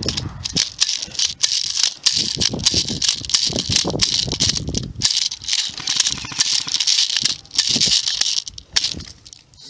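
Airsoft rifle magazine being worked in gloved hands: a fast, uneven run of small clicks and rattles.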